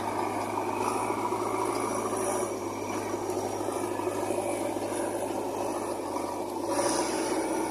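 JCB backhoe loader's diesel engine running at working revs with a steady drone; about seven seconds in, its note shifts and grows a little louder as it takes on load.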